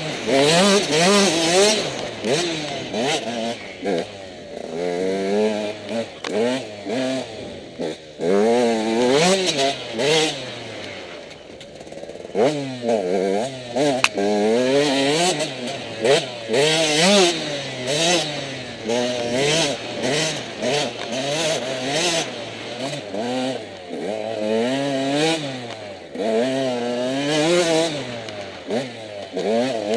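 Enduro dirt bike engine riding a trail, revving up and dropping back again and again, often more than once a second, with bursts of hiss.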